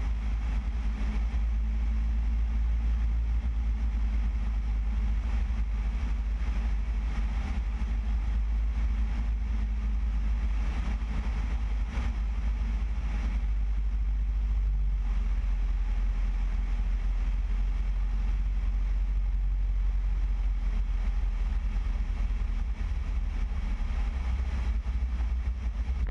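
Piper Cherokee PA-28-180's four-cylinder Lycoming engine running steadily at reduced power on final approach to landing, heard with a low rush of air over the tail-mounted camera.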